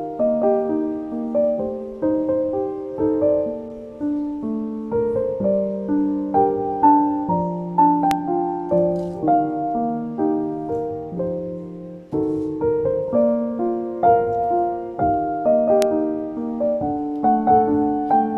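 Background piano music: a gentle melody of single struck notes, each ringing and fading.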